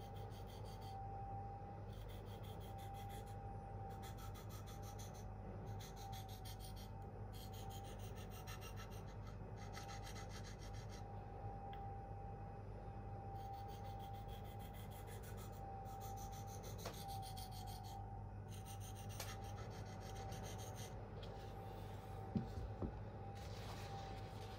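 Knife blade of K390 steel stroked across a Venev F400 diamond sharpening stone: repeated gritty scraping strokes, each about a second long with short pauses between them. This is the medium-grit stage, apexing the edge and cleaning up the scratch pattern. A steady faint whine runs underneath, and two light knocks come near the end.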